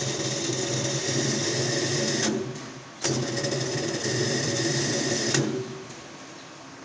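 Mitsubishi electric hoist motor running with a steady hum. It stops about two seconds in, starts again a moment later, and winds down near the end.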